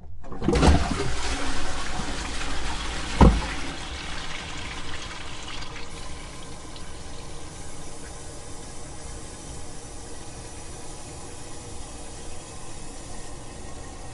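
Toilet flushing, heard from inside the tank: a sudden loud rush of water draining out, with a single low thump about three seconds in. It then settles into a steady, quieter hiss of water as the tank refills.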